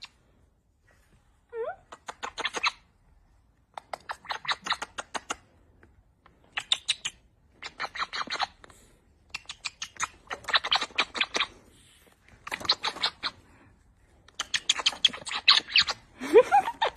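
Parrot making repeated smacking kiss sounds in quick bursts of clicks, about a second at a time with short pauses between. A short squeaky rising call comes about a second and a half in, and sliding squeaks near the end.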